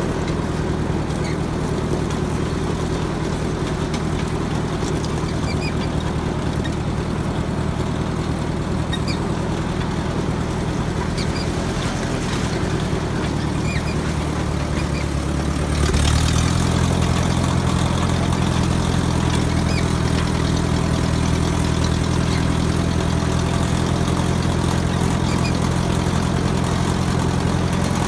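Tractor engine running steadily while driving. About halfway through, its speed steps up and it gets a little louder, with a brief sharp knock at the moment of change.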